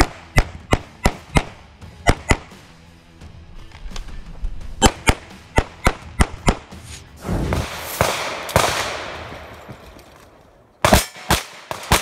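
Rapid pistol fire from a CZ 75 TS Czechmate: strings of sharp shots, about three a second, broken by short pauses, with a faster string near the end. A rushing noise swells up and fades away in the middle.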